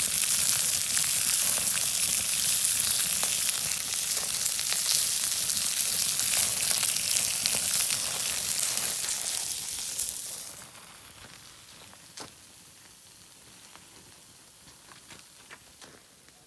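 Slices of pork sizzling on a stone slab heated over a wood fire: a steady, loud hiss that cuts off about ten seconds in.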